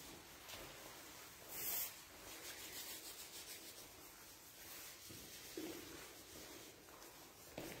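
Faint rustling and shuffling of people walking across a carpeted church floor, with one brief louder rustle just under two seconds in.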